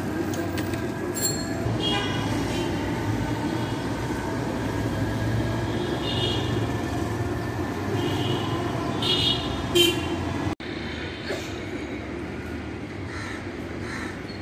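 Busy city street traffic: engines running and vehicles passing, with short horn toots sounding several times over it. A brief break about ten seconds in.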